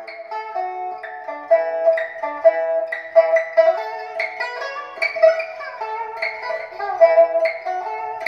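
Instrumental music on plucked string instruments: a run of quick plucked notes over a note repeated about twice a second, played through a pair of hi-fi bookshelf speakers in a room.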